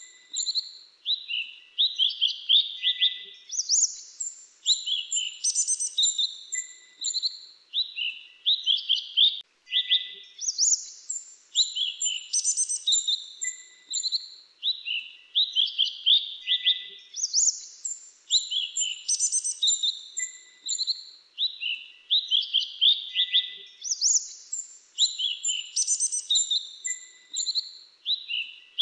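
Mantenan dagu kelabu, a small songbird, singing without pause in quick, high chirping phrases, a new phrase every second or so. The same song pattern repeats every few seconds.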